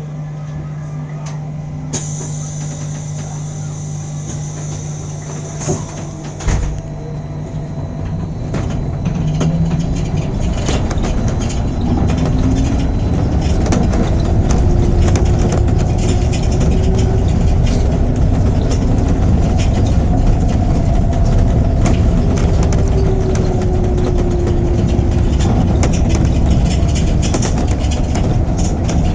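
Electric city bus running: a low hum, two short knocks about six seconds in, then a louder low rumble from about eight seconds on, with a faint whine that rises in pitch and later falls.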